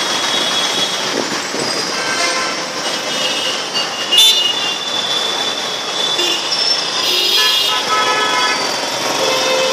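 Vehicle horns tooting several times over steady road traffic noise in a busy street, the loudest a sudden sharp blast about four seconds in.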